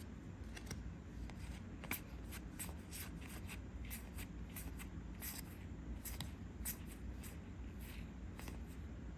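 Trading cards from a freshly opened booster pack being flipped through one at a time: a quick, irregular run of short card flicks and slides.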